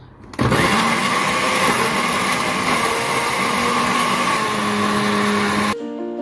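Electric blender running on pineapple and orange pieces, a loud steady whirr whose motor pitch wavers as it chops through the fruit; it starts about half a second in and cuts off suddenly near the end, where music begins.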